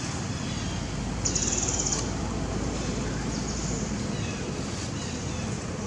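Outdoor forest ambience: a high, rapidly pulsing buzzing trill lasting under a second comes about a second in and again fainter about three seconds in. Faint chirps and a low rumble run beneath it.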